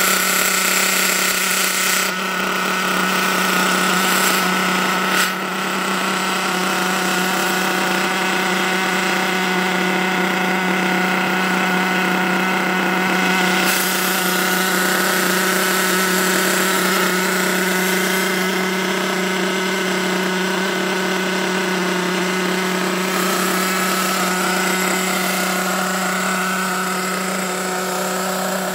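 HPI Trophy 4.6 Truggy's small two-stroke nitro glow engine running steadily at one constant speed, a brand-new engine being run in.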